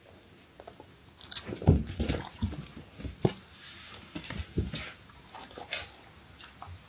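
Siberian husky biting and chewing an apple: a run of wet, crisp crunches, the loudest bite near the start, fading out in the last second or so.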